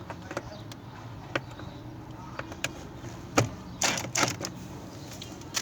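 Hand tools on the washing machine spin-dryer motor's mounting bolts as they are tightened: scattered metal clicks and clinks, a sharp knock about three and a half seconds in, then a short run of scraping noises.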